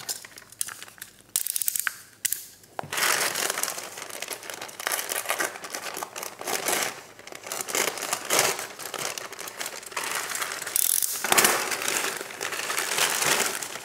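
Plastic courier mailer bag crinkling and rustling as it is cut open with a utility knife and torn apart. A few separate sharp clicks come in the first three seconds, then steady handling noise with louder tearing near the end.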